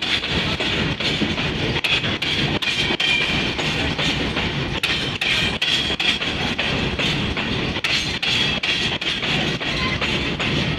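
Goods train of steel hopper wagons rolling slowly past at about 20 km/h. A continuous rumble of wheels on rail is broken by irregular clicks and clanks as the wheels cross rail joints.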